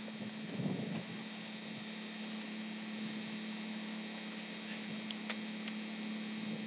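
Steady low electrical hum with hiss, the background noise of an old home-video recording, with a brief soft rustle about half a second in.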